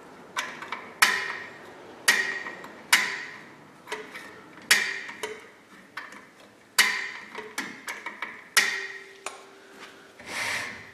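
The star-wheel adjuster of a 1994 Ford Ranger's rear drum-in-hat parking brake being turned with an adjusting tool: about six sharp metallic clicks, a second or two apart, each with a short ring, plus a few fainter ticks. Each click is one notch of backing the shoes off after they were spread tight, to give them running clearance.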